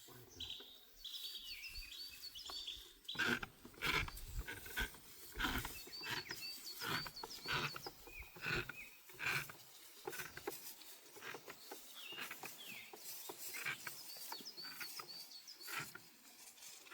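Birds chirping and singing in short repeated phrases, over a busy run of short rustling and scraping noises close by, which are the loudest sounds.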